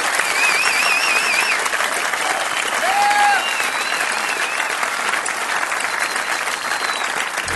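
Concert audience applauding steadily, with a warbling whistle and a few shouts of approval rising above the clapping.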